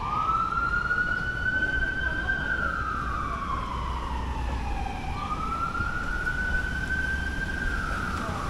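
Emergency vehicle siren on a slow wail: the pitch rises sharply, holds high for a couple of seconds, then glides slowly down before rising again about five seconds in.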